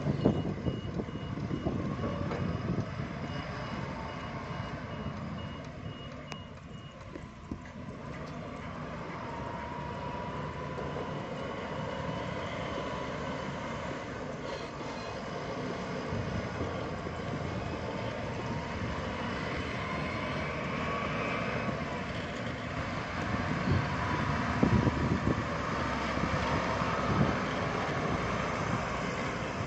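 Large diesel forklift's engine running as it drives, with its reversing alarm beeping steadily for the first several seconds before it stops. The engine grows louder near the end.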